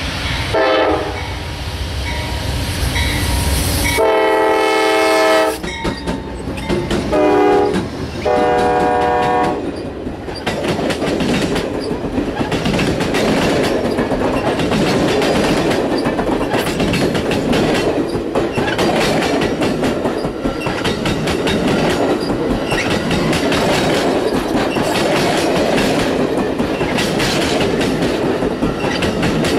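Passenger train locomotive sounding its horn in four blasts, the second and last long, the third short, as it approaches, then the passing cars rolling by with a steady clickety-clack of wheels over the rail joints.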